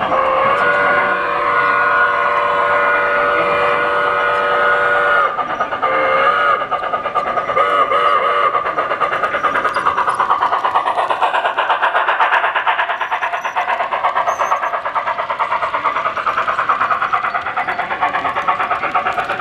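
HO-scale model steam locomotive's sound decoder (an IHC 2-10-2 with a Tsunami 2 sound card) blowing its whistle: one long two-note blast of about five seconds, then a few short toots. From about ten seconds in, the train rolls close past with fast, dense clicking of wheels on the track.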